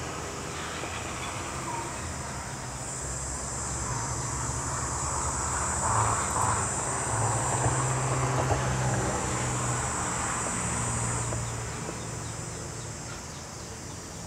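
Insects buzzing in a steady high whine that sets in about three seconds in and stops a few seconds before the end, over a low engine hum that swells through the middle and then eases off.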